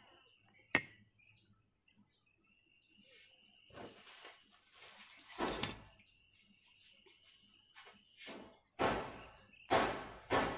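Small birds chirping faintly in the background, with a sharp click about a second in. Louder rustling and handling noises as the TV power supply circuit board is picked up and handled near the end.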